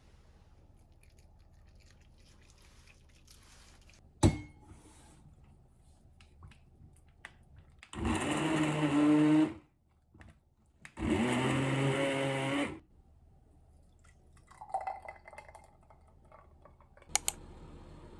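Electric blender run in two short bursts of about two seconds each, its motor whirring, with the pitch rising as it spins up at the start of the second burst. A sharp knock comes before them and another near the end.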